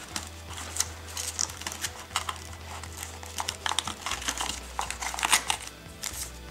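Packaging being handled by hand: paper instruction booklets and plastic accessory bags in a cardboard phone box rustle and crinkle, with irregular light clicks. The sharpest crinkle comes about five seconds in.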